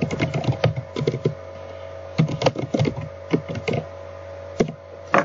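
Computer keyboard typing: quick runs of keystrokes broken by short pauses, over a steady low electrical hum.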